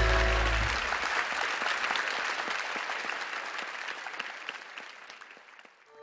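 A big band's final held chord cuts off under a second in, and the concert audience applauds. The applause dies away over the next few seconds.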